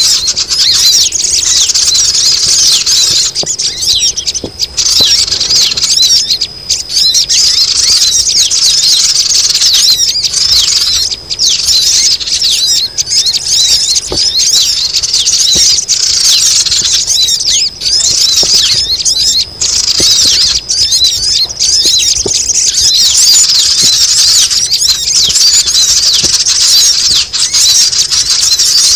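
A loud, continuous chorus of many small birds (sogon) chattering in rapid, high-pitched, squealing chirps: the noisy flock call used as a lure to bring sogon down.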